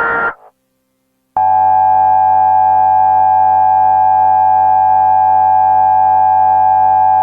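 Emergency Alert System signal: the end of a harsh digital header burst, a second of silence, then the loud, steady EAS attention tone, starting about a second and a half in and holding unbroken.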